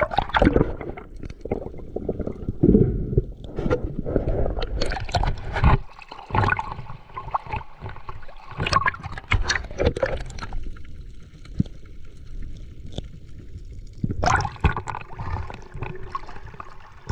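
Sea water splashing and gurgling around a swimmer's action camera as it dips under the surface and comes back up, with bubbles. The splashes come irregularly, with a quieter, muffled stretch in the middle while the camera is underwater.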